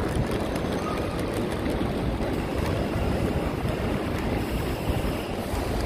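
Steady low rumble of traffic and idling bus engines under the roof of a covered bus terminal.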